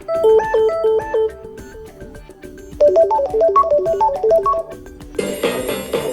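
Samsung Galaxy Tab S7 FE alarm tones previewed one after another. A short chiming melody plays first, then a quick repeating run of notes about three seconds in, then a denser, brighter tone takes over about five seconds in.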